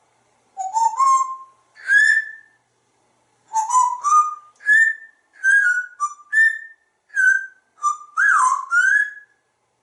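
African grey parrot whistling a string of about a dozen short notes, most of them rising in pitch, with one swooping up-and-down note near the end.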